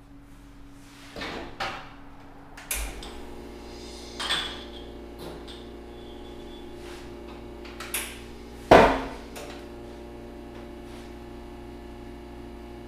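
Knocks and clatter of barista tools at an espresso station, about five sharp knocks with the loudest near the 9-second mark. Under them a steady machine hum from the espresso machine starts about three seconds in and runs on.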